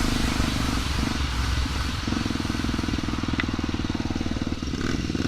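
Single-cylinder four-stroke engine of a Honda XR trail motorcycle running steadily, with a brief drop about a second in before it picks up again.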